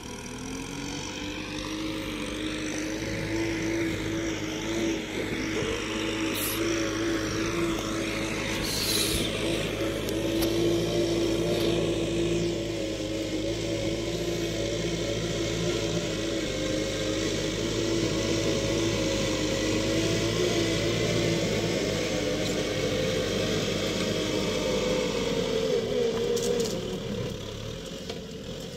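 Kubota tractor's diesel engine running steadily under load while pulling a plow through the field. It grows louder over the first few seconds and eases off near the end.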